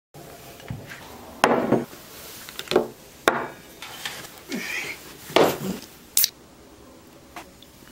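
Cutlery knocking and scraping on a plate at a table: several sharp clatters and scrapes, some brief and some drawn out.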